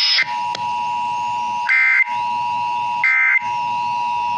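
Emergency Alert System audio over a radio receiver: the steady two-tone attention signal, two pitches just under 1 kHz sounding together, with three short warbling bursts of digital SAME data code about a second apart.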